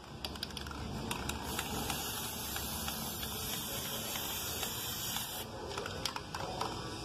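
Aerosol can of Colorgin metallic copper spray paint hissing steadily for about four seconds as paint is sprayed, starting about a second and a half in and cutting off abruptly; a few light clicks before and after.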